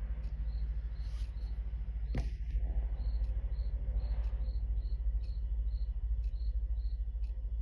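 Chelsea Shipstrike quartz ship's-bell clock ticking steadily, about two ticks a second. Its bell strikes once, sharply, about two seconds in.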